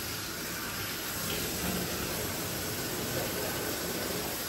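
Water from a handheld hose spray nozzle spraying steadily onto a dog's wet coat in a grooming tub: an even hiss of running spray.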